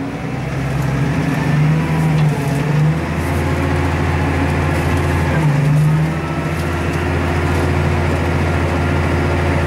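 Tractor diesel engine pulling a four-furrow plough under load, heard from inside the cab. The engine note wavers about three seconds in and again near five and a half seconds, then settles slightly higher as the tractor is shifted down a gear to ease the load.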